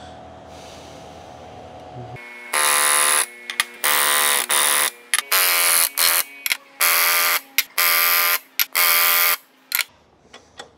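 Pneumatic rivet gun hammering rivets into a flat sheet-metal patch against a bucking bar, in about eight short bursts of under a second each with a loud buzzing, ringing tone. A steady low hum is heard before the first burst.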